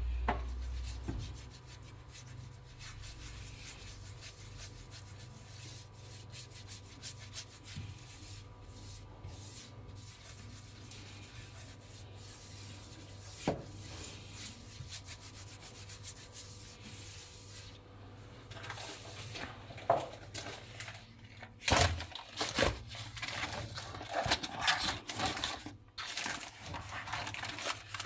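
A pizza base being handled in a frying pan on the hob: faint rubbing and scraping, with a run of knocks, clatters and scrapes in the last third.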